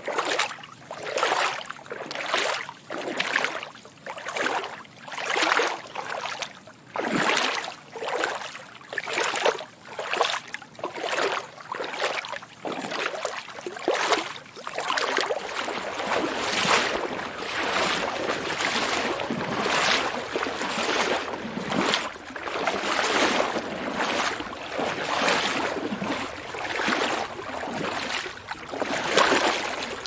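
Swishing water noise that swells and fades about once a second, then thickens into a steadier wash after about fifteen seconds.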